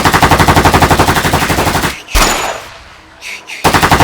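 Toy AK-47 playing its electronic machine-gun sound effect: rapid, evenly spaced shots of about seven a second. The shots stop about two seconds in, a single loud bang fades away, and then another rapid burst starts near the end.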